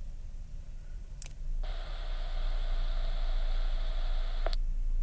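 A Kenwood TK-481 handheld radio keyed with a click, then its speaker carries the 900 MHz repeater's reply: about three seconds of steady hiss with a faint high tone that starts abruptly and cuts off with a squelch click near the end. The reply means the repeater was reached (a kerchunk).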